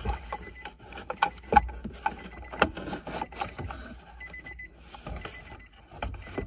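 Plastic interior trim clips clicking and knocking as a console trim panel is pried loose by hand. Through it, the vehicle's warning chime beeps in short spells: it keeps sounding because the key has to stay in the ignition with the power on.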